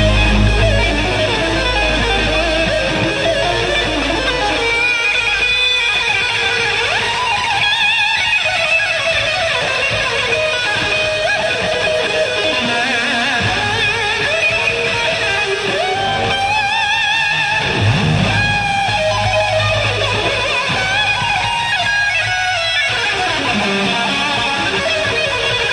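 Electric guitar solo played live on a Stratocaster-style guitar, with quick runs and sustained notes shaken by wide vibrato over a low backing.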